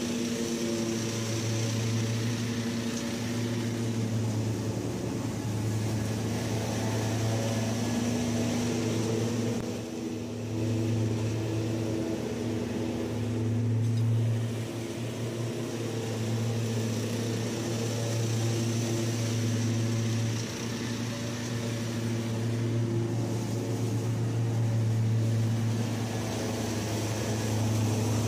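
Kubota ZG222 zero-turn mower and its towed Cyclone Rake leaf vacuum running steadily while collecting leaves: a continuous engine hum with a higher blower hiss, swelling and dipping a little as the machine moves and turns.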